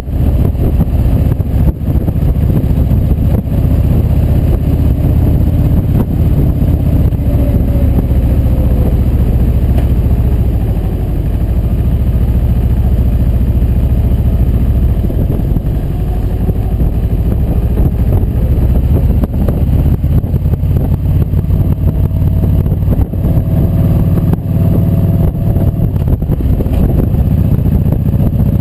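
Touring motorcycle's V-twin engine running at road speed. Its note drops as the throttle eases off about ten seconds in, then climbs again a few seconds later.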